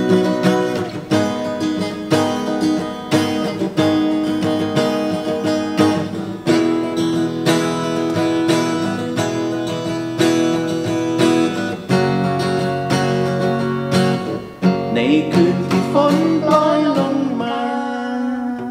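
Acoustic guitar picking and strumming the closing bars of a Thai pop ballad. A voice sings briefly over it near the end.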